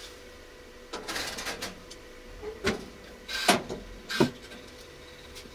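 A person moving about, making a short burst of rustling about a second in and then three separate knocks or clatters, the third-to-last one the loudest, over a faint steady hum.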